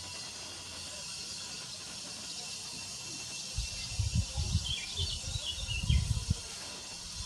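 Outdoor ambience of a steady insect chorus, with irregular low rumbles from about three and a half to six and a half seconds in, and a few faint high chirps near the middle.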